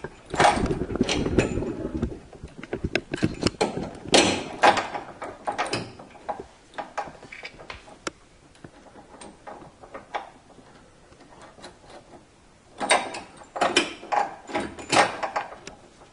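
Metal suspension hardware clicking and knocking as a sway bar end link's bolts, washers and bushings are handled and fitted to the sway bar bracket by hand. The clicks come in irregular clusters: a run in the first two seconds, more around four seconds in, and another near the end.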